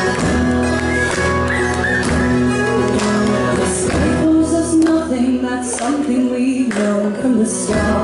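Live acoustic music: a strummed acoustic guitar and a second small stringed instrument, with a woman's voice singing. The low end of the accompaniment drops away about halfway through and comes back near the end.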